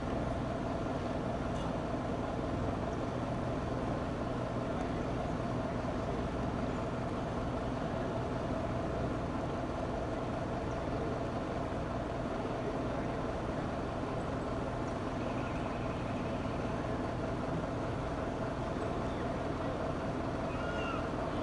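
Steady hum of a large vehicle's diesel engine running at an unchanging speed, with a few constant tones in it and no revving.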